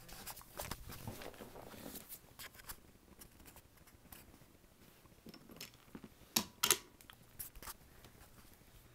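Faint scattered clicks and knocks of wooden toy trains and track being handled, with two sharper clicks close together about six and a half seconds in.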